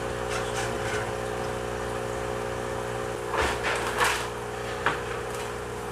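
A steady mechanical hum with several tones, with a few short knocks from handling about three and a half, four and five seconds in.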